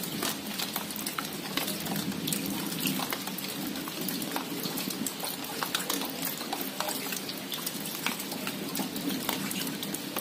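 Steady rain falling on the leaves of a small shrub, many close drops pattering and ticking separately over a low, even rush of rainfall.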